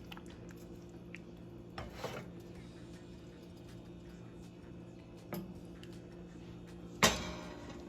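Soup being dished up: a ladle and bowl clinking and knocking, a few light taps and one louder knock near the end, over a steady low hum.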